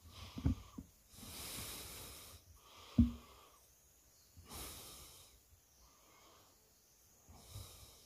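A person breathing audibly and slowly close to the microphone, several long breaths. Two short dull thumps come about half a second in and about three seconds in, the second one louder.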